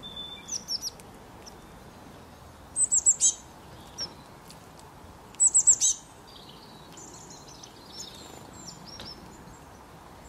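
Small songbird singing: bursts of rapid, high, bright chirps, loudest about 3 s and 5.5 s in, with a softer burst at the start and quieter twittering in the later seconds.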